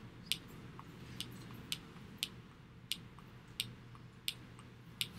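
A run of about eight sharp, light clicks, roughly evenly spaced, as slides are clicked back one after another, over a faint low hum.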